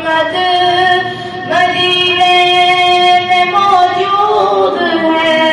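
A boy's high voice singing a naat, an Urdu devotional poem, in long held notes that change pitch a few times, with a falling turn about four seconds in.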